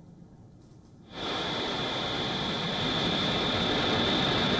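SpaceX Falcon 9 first-stage engines running just after liftoff, a steady, loud roar of rocket exhaust that comes in suddenly about a second in and holds.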